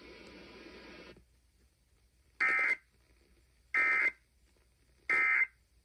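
Emergency Alert System end-of-message data tones: three short, evenly spaced bursts of buzzy digital tone about 1.3 s apart, which close the broadcast alert. They follow about a second of faint broadcast hiss that cuts off.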